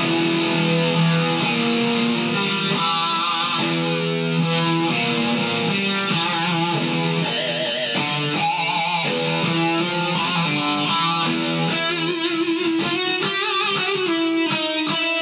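Distorted electric guitar played through a Vox Valvetronix AD50VT-XL modelling amp on its 'Black' setting, the amp's doom-metal voice. Long held notes and chords, some with wavering vibrato about halfway, giving way to quicker notes near the end.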